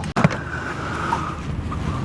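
Steady low rumble of wind and boat noise on the open water, with one sharp knock just after the start.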